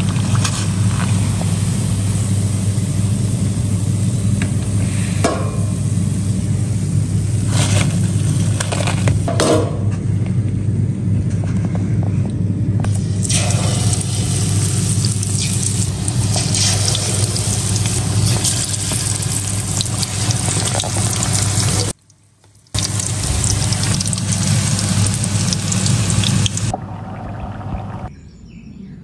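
Hot oil sizzling and bubbling steadily as battered pieces deep-fry in a steel karahi. There are a few brief scrapes or clinks of the skimmer or spoon against the pan, and the sizzle breaks off for a moment about two-thirds of the way through.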